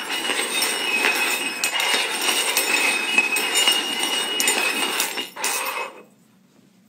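Three small metal cups being shuffled rapidly over a hard wooden floor, scraping and clinking against the floor and each other, stopping about six seconds in.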